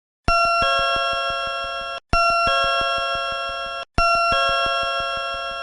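Takamisawa Cybernetics platform screen door open/close chime, as used by Sagami Railway, sounding three times in a row. Each round is a multi-tone electronic chime that steps to new notes partway through over a regular ticking, fading slightly before it stops. It is recorded straight from the electronic sound unit rather than through a station speaker.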